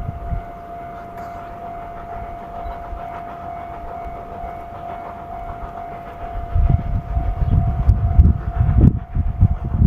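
A level-crossing warning signal sounds steadily as steam locomotive C57 1 approaches. From about six and a half seconds in, the locomotive's heavy exhaust chuffs and running rumble come in loud as it reaches the crossing.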